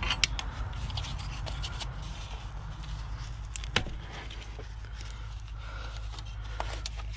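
Hand tools and engine parts being handled: scattered small clicks, taps and light scraping, with one sharper click a little under four seconds in, over a steady low hum.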